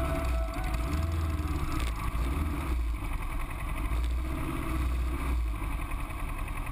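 Motorcycle engines running at low revs as two bikes roll slowly across a parking lot, a deep rumble that swells and eases a little with the throttle.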